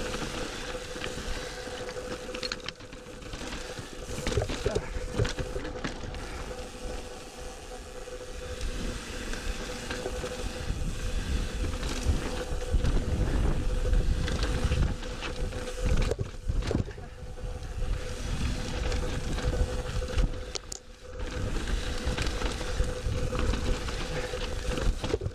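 Mountain bike ridden over rocky dirt singletrack: tyres crunching over dirt and stones and the bike rattling over bumps, with wind buffeting the camera microphone.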